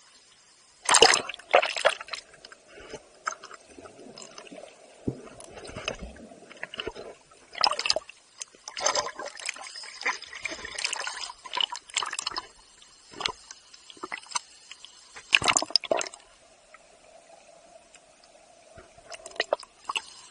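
Water sloshing and splashing around a half-submerged action camera, heard partly from under the surface, in irregular bursts: loudest about a second in, again in a run from about eight to twelve seconds, and once more about fifteen seconds in.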